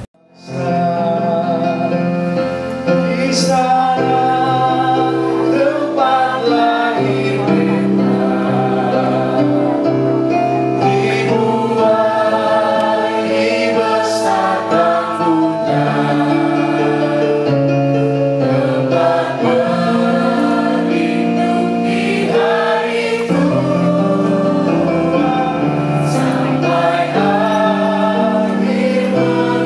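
A choir singing a song, many voices holding long chords that change every second or two, starting just after a brief silence.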